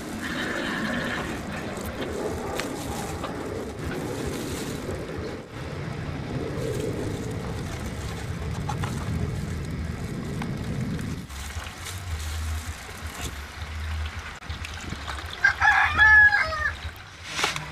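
A rooster crows once near the end, the loudest sound. Before it, a low, uneven noise of liquid being poured and stirred by hand in a plastic bucket.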